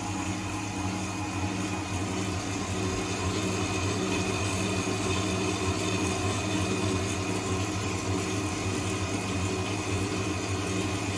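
Electric mixer with a dough hook running steadily at speed 2, kneading a yeast dough: a constant motor hum with a low drone.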